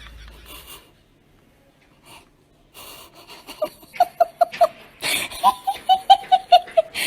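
A person laughing in wheezy, breathy bursts: two runs of quick, evenly spaced pulses, about five a second, starting about three and a half seconds in.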